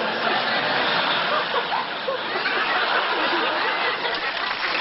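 Laughter and chatter from a group of people, many voices overlapping in a dense, noisy wash.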